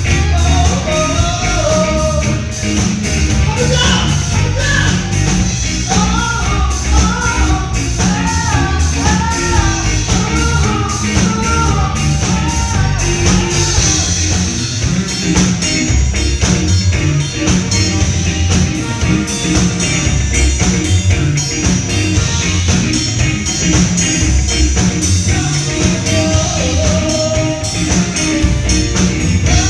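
Band music from drums, bass, guitar and keyboard, with fast regular cymbal strokes throughout. A singer's voice carries the melody through the first half and comes back briefly near the end.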